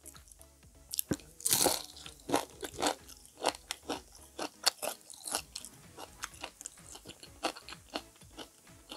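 Close-up crunching and chewing of crispy deep-fried squash fritters (kalabasa okoy): a loud bite about a second and a half in, then a steady run of irregular crackly crunches as they are chewed.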